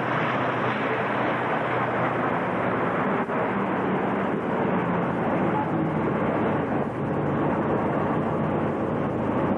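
Armoured vehicle's engine running under way, heard from on top of the hull among the riders: a loud, steady rumble and rush of travel noise.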